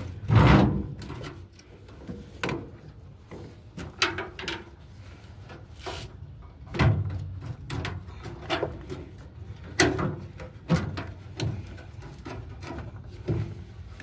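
Irregular plastic clicks, knocks and scrapes as a washing machine's drain pump and its casing are handled and worked loose by hand, the loudest knock just after the start.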